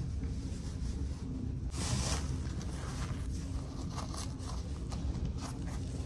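Rustling and scraping of baby clothes and a diaper being handled during a change, with a brief louder rasp about two seconds in, over a steady low hum.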